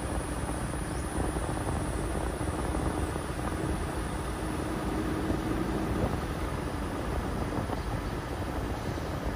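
Car driving along a paved road, heard from inside the cabin: steady low road and engine noise, with a faint hum that fades out about six seconds in.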